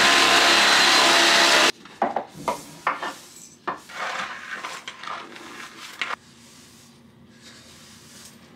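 A corded electric motor runs loud and steady, then cuts off suddenly under two seconds in. Then a small hand brush sweeps dust and debris across the plywood floor into a plastic dustpan in a string of short scratchy strokes, fainter after about six seconds.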